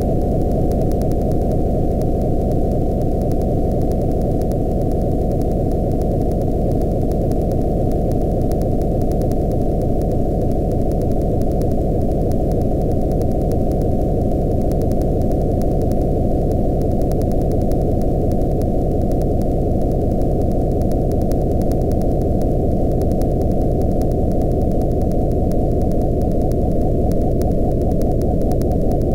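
Steady synthesized noise, muffled with all treble cut off, with a slow phasing sweep whose hollow notches glide gradually downward in pitch. Faint rapid ticking sits high above it.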